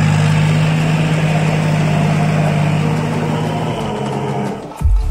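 John Deere 5050D tractor's three-cylinder diesel engine running steadily, easing off a little about four seconds in. Background music with a beat cuts in right at the end.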